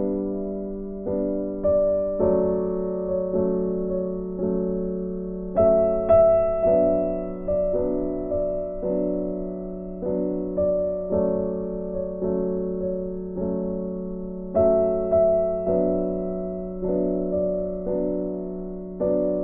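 Background piano music: a slow tune with notes and chords struck about once a second, each fading before the next.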